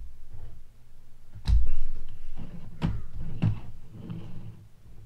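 Hard objects being handled and set down on a desk: a heavy thump about a second and a half in, then two sharper knocks.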